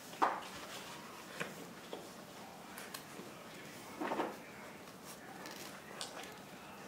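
Samoyed puppies nursing from their mother, making a few brief soft noises: a sharp one about a quarter second in, a longer one about four seconds in, and smaller ones between.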